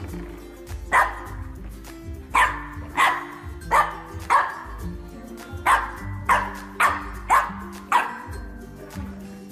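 A French bulldog barking about ten times in short, sharp, irregularly spaced barks, over background music with steady low notes.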